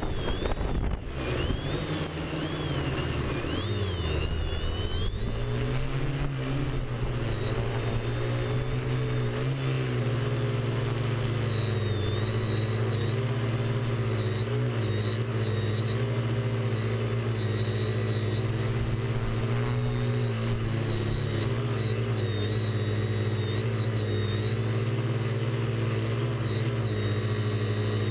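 TBS Discovery Pro quadcopter's electric motors and propellers humming, heard close up from on board. The pitch wavers over the first several seconds, then holds steady, with a thin high whine above it.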